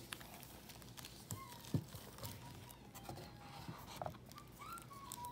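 Quiet handling of a Blu-ray: a plastic case slid out of its cardboard slipcover, with soft knocks and clicks, the sharpest a little under two seconds in. A faint thin whine comes and goes in the background.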